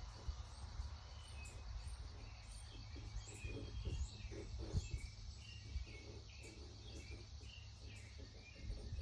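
Small birds chirping repeatedly in short notes over a steady high insect hum, with a low rumble underneath.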